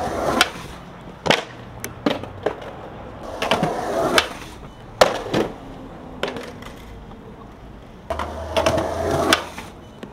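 Skateboard wheels rolling on concrete in three short runs, broken by sharp clacks of the board popping, landing and slapping the pavement.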